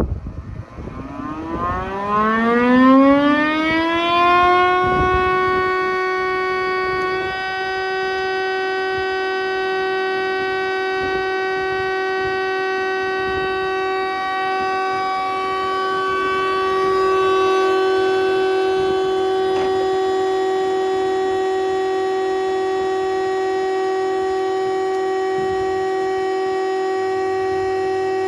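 SCM S630 thicknesser's 5.5 kW motor and four-knife cutter block spinning up after being switched on, a whine rising in pitch over about six seconds, then running steadily at full speed.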